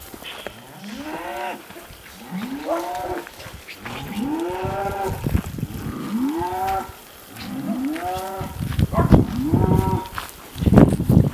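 Cattle mooing over and over: about six drawn-out calls, each rising and falling in pitch, roughly one every second and a half. A loud noisy burst follows near the end.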